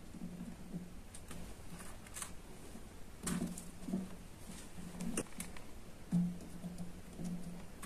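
Faint, scattered clicks and taps from small electronic components and a metal tool being handled while a resistor's leads are fitted to a circuit, over a faint low hum.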